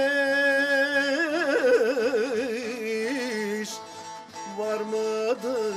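Turkish Teke Yörük folk song: a man's voice holds a long sung note, then breaks into quick wavering ornaments about a second in and settles onto a lower note, over plucked bağlamas.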